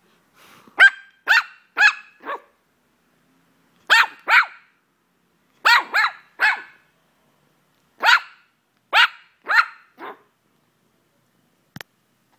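Two-month-old white puppy barking: about thirteen short, high-pitched barks in quick bursts of two to four, with short pauses between bursts.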